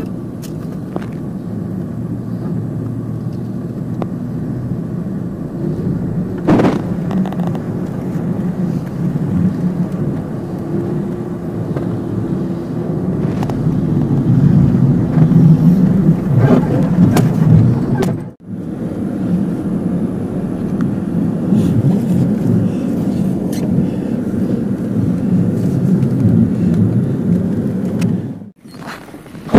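Car engine and road noise from inside a moving car's cabin: a steady low rumble that drops out briefly twice.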